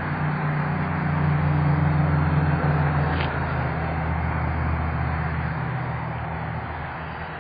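Steady hum of a UMX Waco micro RC biplane's electric motor and propeller in flight, over a rushing noise of wind. It swells about a second in and fades gradually toward the end.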